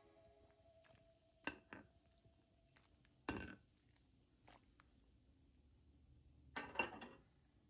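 A ladle knocking and clinking against a pot of boiling peels: a handful of short knocks, two close together about one and a half seconds in, the loudest about three seconds in, and a quick cluster near the end.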